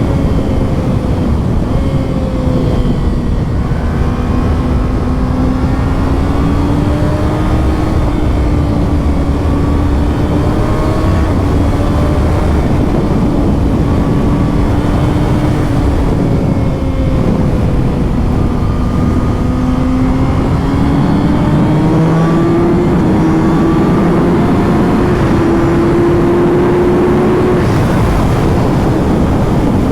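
2020 Kawasaki ZX-6R's inline-four engine on its stock exhaust, running at road speed with its pitch drifting slowly up and down, climbing in the last few seconds before dropping away near the end. Wind rushes over the microphone throughout.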